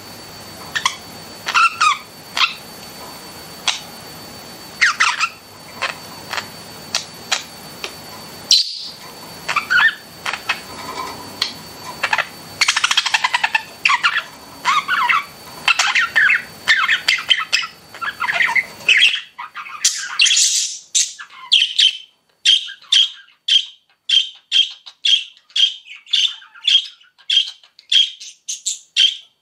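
Pet budgerigars chirping and squawking in short, scattered calls, with a dense spell of chatter midway. About two-thirds of the way in, the background hiss cuts out suddenly and a rapid run of short repeated chirps, about two a second, follows.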